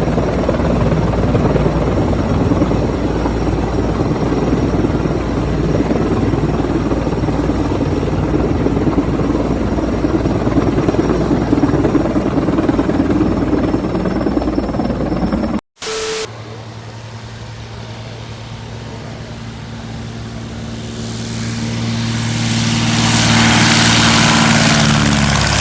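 Helicopter rotor and engine noise, loud and steady, for about fifteen seconds. It is cut off abruptly by a short blip, and then a steadier engine drone with a clear pitch follows and grows louder toward the end.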